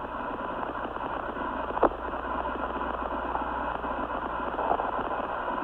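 Steady hiss of the Apollo 11 air-to-ground radio link, boosted in volume, with one sharp click about two seconds in.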